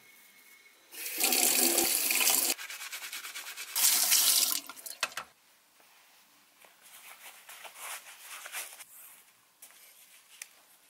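Water running from a bathroom tap into a sink, in two loud bursts: about a second in for a second and a half, and again briefly near four seconds. Later come only faint rustling and small clicks of sandals being put on and their laces pulled.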